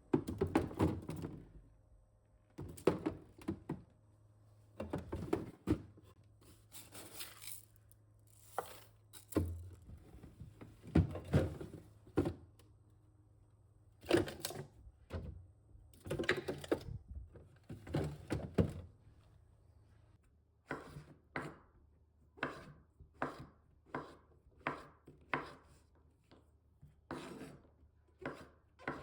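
Kitchen items knocked and set down in irregular clatters, then, from about two-thirds of the way through, a knife chopping on a wooden cutting board in a steady run of short strokes, one to two a second.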